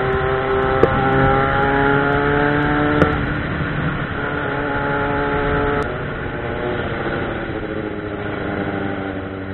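Yamaha XJ6 motorcycle's 600 cc inline-four engine running under way at city speed. Its pitch rises slowly, drops about three seconds in and again near six seconds, then settles lower and a little quieter, with a few brief clicks.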